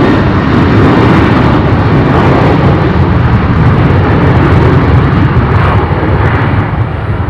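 Boeing 737-800's CFM56-7B jet engines at takeoff thrust: a loud, steady rushing noise that begins to fade near the end as the airliner moves away.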